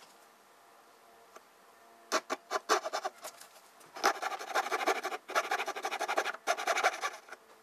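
Coping saw cutting into the end of a skirting board by hand. A few separate saw strokes start about two seconds in, then from about four seconds in comes a run of quick, steady back-and-forth strokes with two brief pauses.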